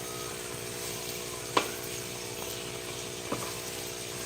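A pan of bitter melon and egg cooking with a steady hiss. There are two sharp clinks of a utensil against the pan, about one and a half seconds in and again past three seconds.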